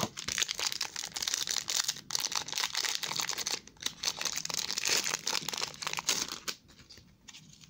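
Foil trading-card pack wrapper being crinkled and torn open by hand, a dense rustle that stops about six and a half seconds in.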